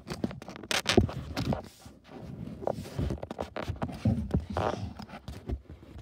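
Irregular knocks, bumps and rustles from a handheld phone being moved and handled close to plastic dolls.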